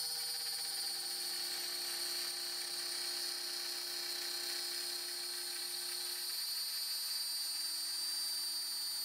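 Makita router on a Shapeoko CNC running at its lowest speed setting, its 1/8" upcut end mill cutting a line in flexible acrylic sheet: a steady high whine with chatter, as the upcut bit pulls the bowed sheet up off the bed.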